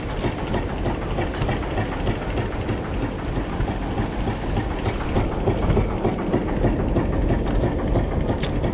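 Steady low rumble of a fishing boat's engine running, mixed with wind and water noise.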